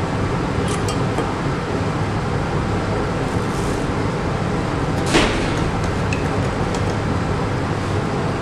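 Steady low rumble and hiss of room noise, with one short, sharp scrape or knock about five seconds in.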